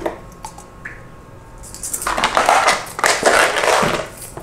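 Plastic being handled on a tabletop: a click at the start, then about two seconds of rustling and crinkling from a clear plastic case and plastic packets, beginning about two seconds in.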